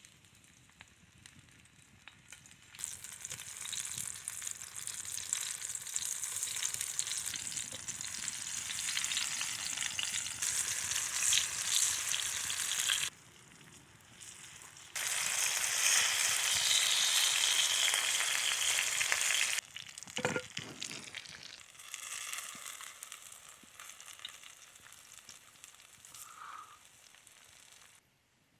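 Food sizzling as it fries over a campfire, a dense crackling hiss that comes in several stretches, each starting and stopping abruptly, the loudest in the middle; a few soft knocks fall between them.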